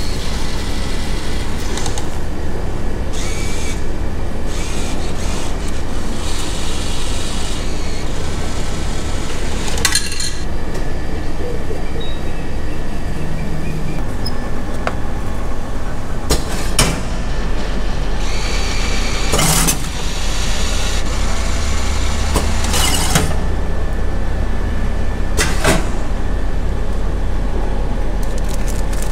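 Popiah vending machine running with a steady low hum while it dispenses a wrapped roll, with several clicks and clunks and two short hisses about two-thirds of the way through.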